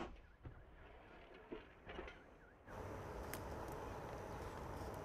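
Fading rumble and echo of a towed field gun's shot, with a few faint knocks. About two and a half seconds in, a steady outdoor noise takes over.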